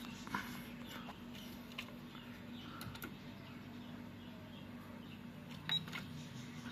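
Scattered light clicks and handling of a Victor UX-Z11WMD MiniDisc system's B MD slot as a disc is loaded, over a faint steady hum. A sharper click comes near the end as the deck starts reading the disc.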